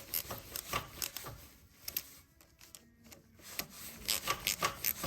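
Hand tools and metal parts being worked on a motorcycle: clusters of short clicks, scrapes and rubbing, with a lull around the middle.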